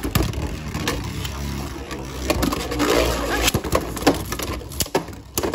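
Beyblade Burst spinning tops (Hasbro Pro Series Valtryek against Achilles) spinning in a plastic stadium just after launch, a steady grinding whir of metal and plastic on the arena floor broken by many sharp clicks and knocks.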